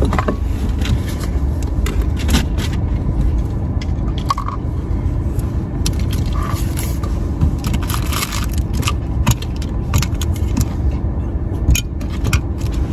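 Irregular rustling, scraping and clicking of trash and a plastic bottle being handled in a car, over the steady low hum of the running car.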